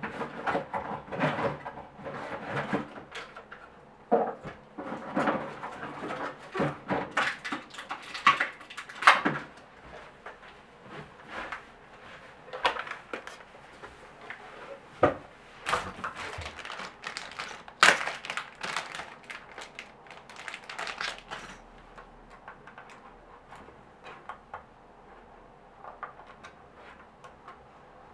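Irregular clicks, knocks and rustles of objects being handled by hand, coming in uneven clusters and thinning out after about twenty seconds.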